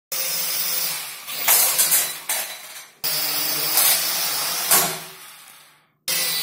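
Helicute X-Drone Scout toy quadcopter flying, its propellers whirring with a loud hissing noise, in three short clips that each start abruptly. There are several sharp knocks along the way.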